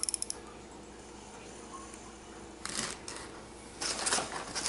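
A quick run of small high clicks right at the start, as the Trulinoya TS1200 baitcasting reel's handle is turned. Then a bag on the table is handled, with a short rustle a little past halfway and a longer crinkling rustle near the end.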